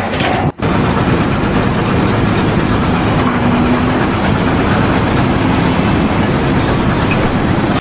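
Loud, steady mechanical rumbling noise, starting after a brief break about half a second in.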